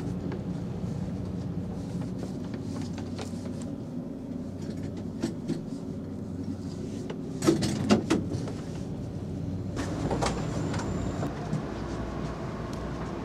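Steady low hum inside a sleeper-train coach, with scattered clicks and knocks over it and a short cluster of louder knocks a little past halfway.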